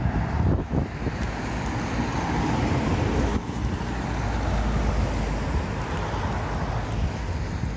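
Road traffic on a roundabout: cars driving past close by, a steady rush of tyre and engine noise.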